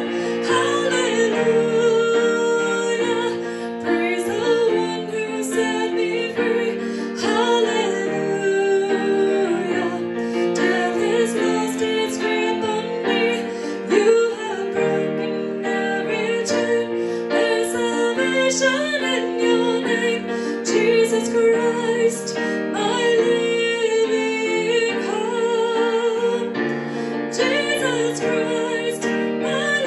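A woman singing a worship song chorus with vibrato on the held notes, accompanying herself on a grand piano.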